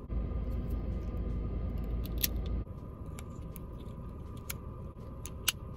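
Small sharp plastic clicks as a Scentsy car vent-clip air freshener case is opened and handled, over a low rumble that cuts off about two and a half seconds in and a faint steady hum.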